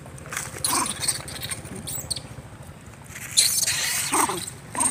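Monkeys scuffling at close range on sandy ground: a few short, high calls from a young monkey, with a louder stretch of scraping and rustling a little past the middle.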